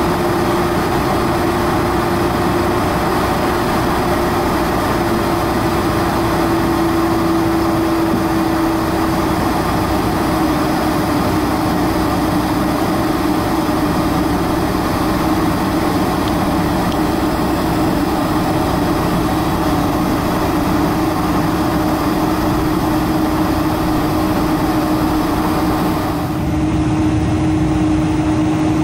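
Cabin noise of a Boeing 747-400 taxiing with its General Electric CF6-80C2 engines at idle: a steady drone with a held tone that drifts slightly in pitch. A couple of seconds before the end, the highest part of the sound drops away abruptly.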